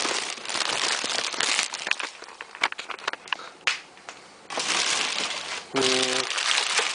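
Packaging being handled while a coffee machine is unpacked: crinkling and rustling, with a run of sharp clicks in the middle. Near the end there is a brief low hum.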